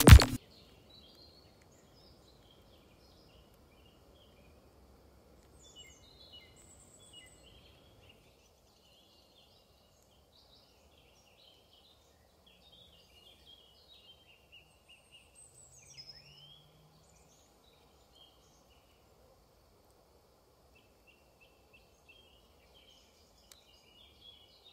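Faint woodland birdsong: several small birds giving scattered short chirps and trills, over a faint low background rumble.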